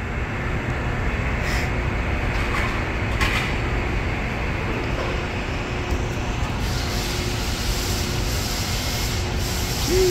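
Steady workshop hum with a faint constant tone underneath, and a few light clinks from work under a car raised on a lift. A brief falling squeak near the end.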